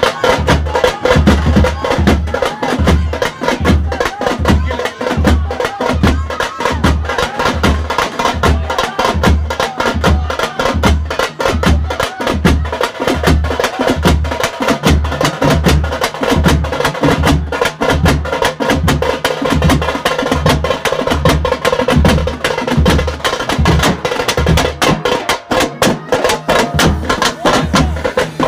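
Festival drums playing a fast, steady rhythm: a deep repeating beat under rapid, sharp stick strokes.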